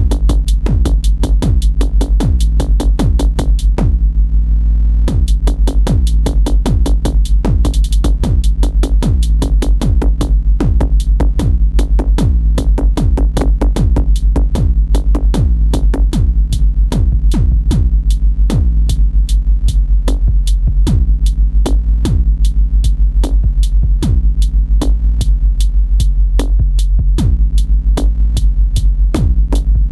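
Electronic dance music with a steady drum-machine beat of about four strokes a second over a constant heavy bass, with a brief break in the beat about four seconds in.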